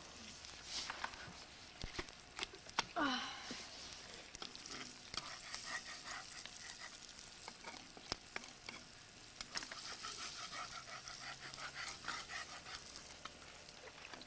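Eggs sizzling in a frying pan over a campfire, with small clicks and scrapes of a spatula working in the pan. A short falling squeal about three seconds in.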